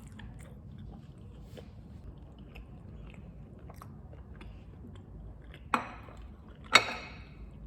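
A person eating close to the microphone: quiet chewing with small mouth clicks, then two loud crunchy bites about a second apart near the end, the second louder.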